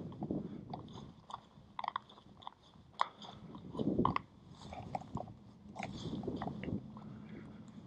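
Bicycle rolling slowly over gritty asphalt: irregular small crunches and clicks from tyres and frame, with no engine.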